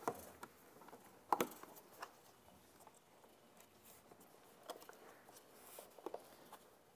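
Cover of an E-Z-GO RXV golf cart's controller compartment being fitted back on by hand: scattered light knocks and clicks as it is pressed into place over the wiring, the loudest about a second and a half in.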